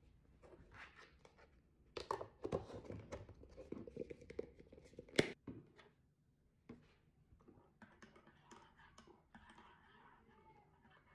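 Close rustling and crinkling of something being handled, ending in one sharp click about five seconds in, followed by quieter scattered handling sounds.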